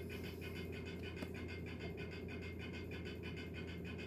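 Steady machine hum with a fast, even flutter of about five pulses a second, and a faint click about a second in.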